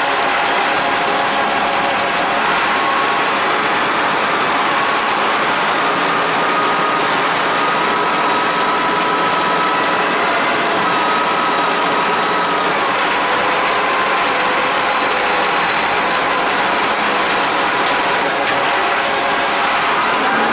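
Large engine running steadily, with a faint whine that slowly shifts in pitch.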